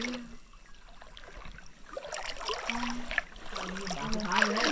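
Creek water sloshing and splashing around legs wading through it, starting about two seconds in, with a few short wordless voice sounds such as humming.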